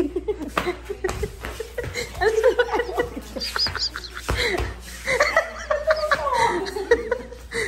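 A woman laughing in a string of short bursts.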